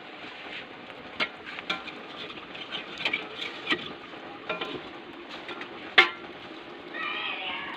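Hot oil sizzling steadily in a wok over a wood fire, with a ladle stirring and knocking against the wok several times. The sharpest knock comes about six seconds in.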